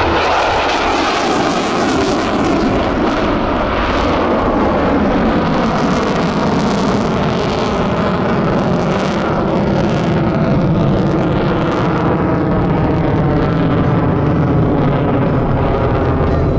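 F-35C fighter's Pratt & Whitney F135 jet engine, loud and continuous. Its tone falls in pitch over the first two seconds or so as the jet passes, then a steady rushing jet noise holds.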